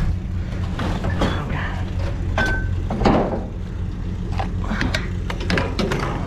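Scrap metal and junk clattering and clanking as it is rummaged through and pulled from a dumpster, with a short squeak about two and a half seconds in, over a steady low engine hum.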